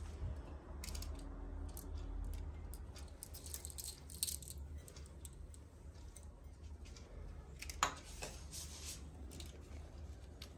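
Faint clinking and rattling of metal bangles and a shell-and-metal necklace as a woman moves her arms and lifts her hair, with one sharper click about eight seconds in. A low steady hum lies underneath.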